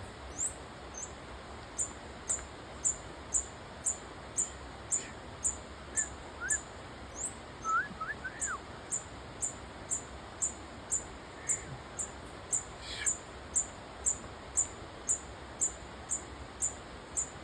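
A hummingbird giving high, thin, squeaky chips, evenly repeated about twice a second. A few short whistled notes from another bird come in about halfway through.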